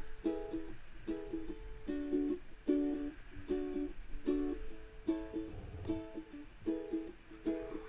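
Background music: a plucked string instrument playing short, repeated chords in a steady rhythm.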